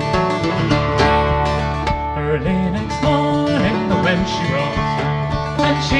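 Instrumental break of a Celtic folk song on acoustic guitar and a teardrop-bodied, long-necked mandolin-family instrument: a plucked melody over strummed chords, without singing.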